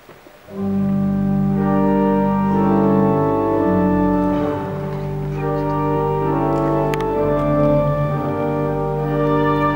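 Pipe organ starting about half a second in with slow, sustained chords that change every second or two.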